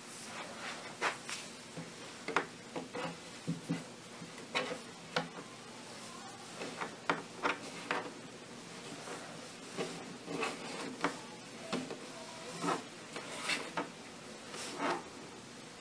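Nylon paracord rubbing and swishing as strands are passed through and pulled tight in a bracelet weave by hand: a run of brief, irregular rustles.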